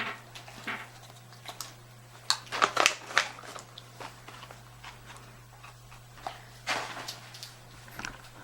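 A dog biting and crunching on a hard, dried sweet potato chew, in irregular bursts of crunches with pauses between.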